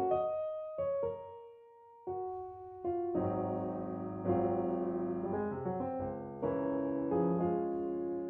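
Background piano music: chords and single notes struck at intervals, each ringing and fading.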